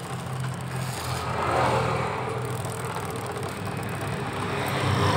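Yamaha Byson motorcycle's drive turning with a rough, knocking 'krok-krok' noise: the internal gear teeth are worn and shedding metal flakes.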